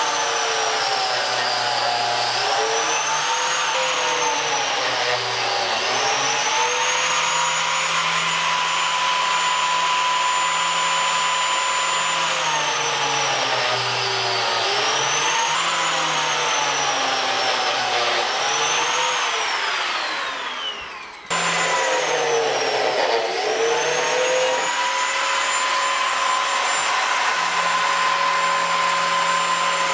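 DeWalt biscuit joiner running with a high motor whine, its pitch sagging several times as the spinning blade is plunged into the edge of an ash butcher block countertop to cut biscuit slots. About twenty seconds in, the motor winds down with a falling whine, then is running again.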